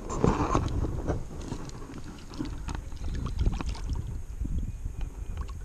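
Water splashing and sloshing in the shallows as a largemouth bass is let go from the hand and swims off, with wind rumbling on the microphone.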